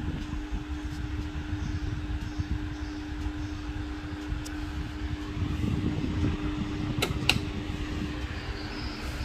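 Sanex FW-1879 wall fan running: a steady motor hum, with the airflow from its blades buffeting the microphone. Two sharp clicks come about seven seconds in.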